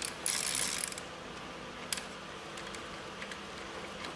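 Ratchet wrench tightening an ignition-coil hold-down bolt: a short burst of quick ratcheting clicks about a quarter second in, then one sharp click near two seconds.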